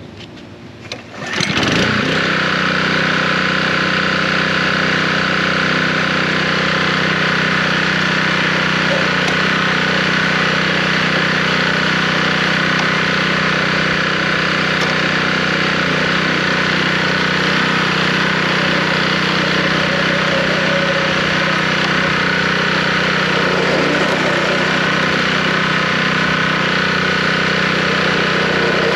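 Small gasoline engine of a California Trimmer mower starting about a second and a half in, then running steadily at an even speed.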